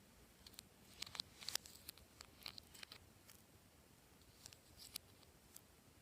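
Clear slime being handled and squished, giving quiet, irregular sticky clicks and pops in little clusters.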